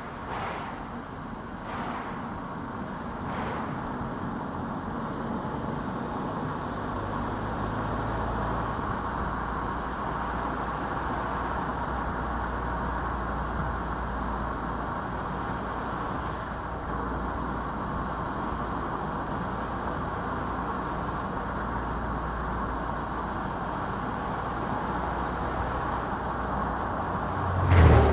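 Car driving along a road: a steady rumble of tyre and engine noise, with a few faint ticks in the first few seconds and one sharp thump near the end.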